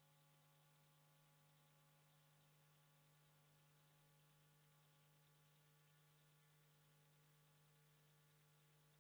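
Near silence: only a faint, steady electrical hum with a light hiss. No crash sound is heard.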